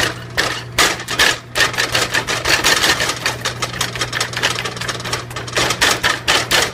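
A plastic spatula chopping and scraping raw ground beef against the bottom of a nonstick pot: rapid taps and scrapes, several a second, over a steady low hum.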